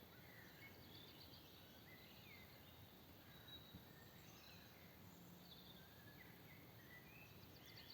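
Faint birdsong: many short chirps and whistles from small birds, scattered throughout, over a faint steady hiss.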